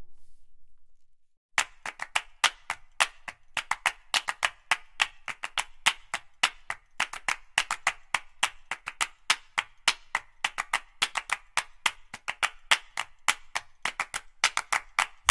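Background music fades out. After a short gap, a quick run of sharp percussive taps or claps starts, about five or six a second, with no bass beneath them.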